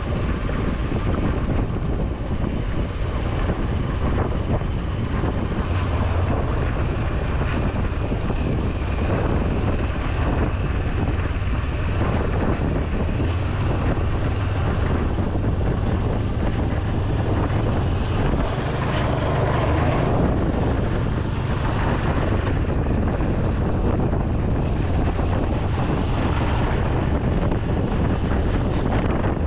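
Honda CB500X's parallel-twin engine running steadily while riding, with wind buffeting the camera microphone.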